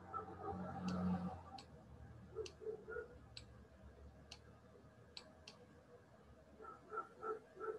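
Faint, sharp ticks at roughly one a second, with a few soft muffled taps in between.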